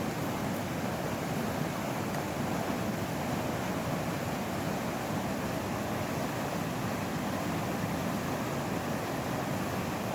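Steady rush of a creek's falls running high and fast, the water well above its normal level after heavy rain.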